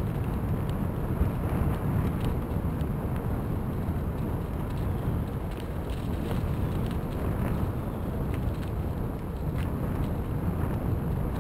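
Bicycle riding over a leaf-covered dirt-and-gravel trail: a steady low rumble of tyres and bike vibration, with scattered small clicks and crackles.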